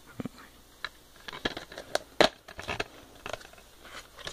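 Clear plastic DVD case being handled and opened, a string of light plastic clicks and crackles with one sharper click about two seconds in.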